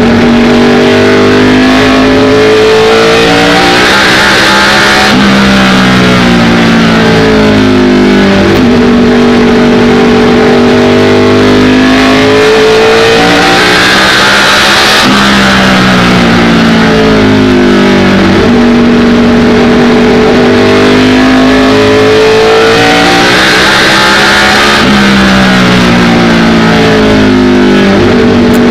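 ARCA stock car's V8 engine heard from inside the cockpit, running hard around an oval. Its pitch climbs along each straight, then drops as the driver lifts for the turns, roughly every ten seconds. Wind and tyre noise swell as the car reaches top speed.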